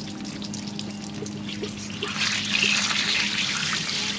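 Water starting to run out of the brass fill fitting at the base of a plastic flush tub as it is loosened, growing to a steady splashing flow onto concrete about two seconds in.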